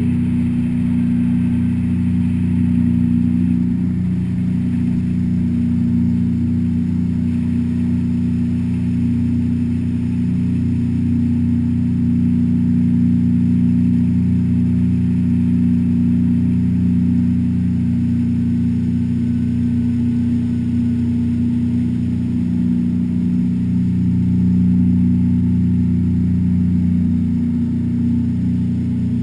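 Jet boat's Yamaha engine running steadily at cruising speed, an even, unchanging drone.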